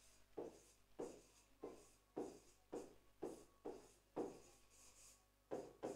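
Faint scratching of a hand writing on a classroom board: about a dozen short strokes, roughly two a second, as letters are written out one after another.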